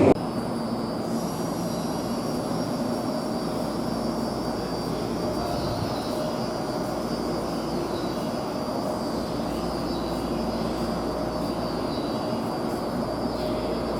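Steady mechanical hum and air noise from a stopped electric train at the platform, with a few faint, steady whining tones.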